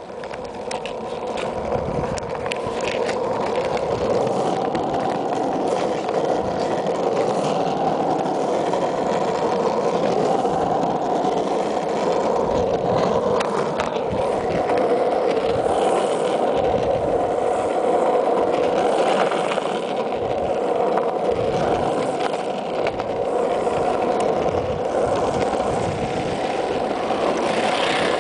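Freebord wheels rolling on asphalt at speed: a steady rolling rumble that grows louder over the first three or four seconds as the board picks up speed downhill.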